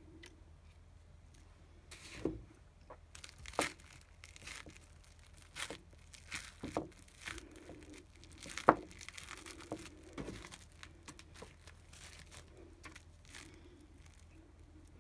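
Plastic cling film crinkling and a spoon scraping and tapping as crumbly chocolate is pressed flat on a film-wrapped plate: irregular crackles and clicks starting about two seconds in and thinning out near the end, the loudest a sharp click a little past the middle.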